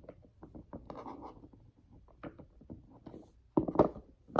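Silicone pop-it fidget (a hexagon poppet) being pressed with the fingers: a rapid run of soft popping clicks, with louder pops or handling sounds near the end.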